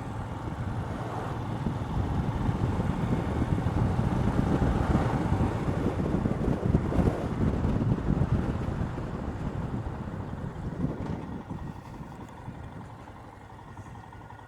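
Royal Enfield Himalayan's single-cylinder engine running on the move, with wind rushing over the microphone. The sound eases off over the last few seconds as the bike slows.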